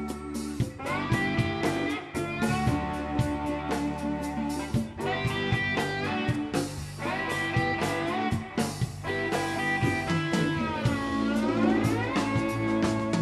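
Live blues-rock band playing, electric guitars to the fore over drums and keyboards. Near the end a guitar note glides down and back up in a long slide.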